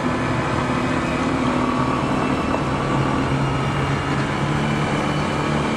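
Honda ADV150 scooter's single-cylinder engine running steadily under way, with a steady rush of wind and road noise; the engine note edges up a little about halfway through.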